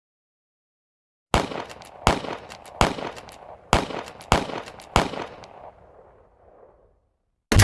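Six gunshots fired at an even pace, roughly one every 0.7 seconds, each ringing out in a long echoing tail. A louder blast with a deep rumble starts right at the end.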